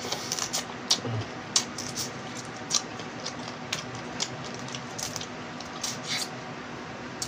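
Crunching and sucking of small boiled crabs eaten by hand: irregular sharp cracks of shell and wet smacks at the mouth as the meat is pulled out, with fingers picking at the shells.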